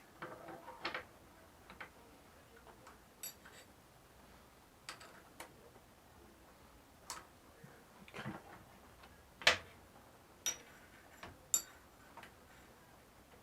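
Irregular light metal clicks and clinks of steel parts and tools being handled, several with a brief high ring. The loudest click comes about two-thirds of the way through.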